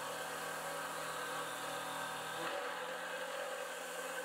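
Precision Matthews PM25MV CNC mill cutting aluminum with a 38 mm four-insert face mill at 2500 RPM: a steady mechanical hum of the spindle and the cut. Its low tone shifts about two and a half seconds in.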